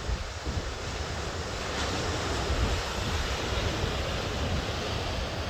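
Wind buffeting the microphone in a steady rumble over the wash of ocean surf breaking below the cliffs, a little stronger midway.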